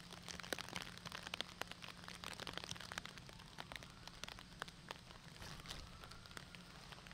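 Light rain pattering: many small drops ticking irregularly, over a faint steady low hum.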